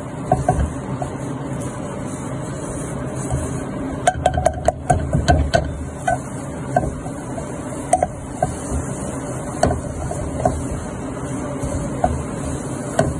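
Silicone whisk stirring flour into melted butter and oil in a nonstick pan, mixing a thick roux paste for white sauce. A steady scraping and stirring runs throughout, with scattered clicks of the whisk against the pan, a quick cluster of them about four seconds in.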